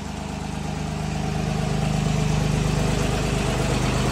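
Ford 3600 tractor's three-cylinder diesel engine running under load while the tractor is driven in third gear to climb onto bricks. It grows louder over about the first two seconds, then holds steady.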